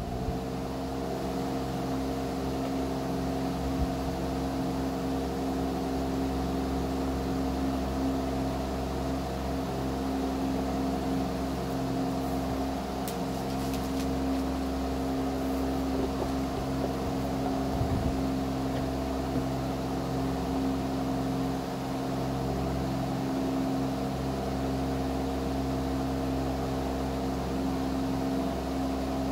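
Compaq Presario CQ61 laptop's cooling fan coming up to speed at the start, then running at a steady pitch with a constant hum.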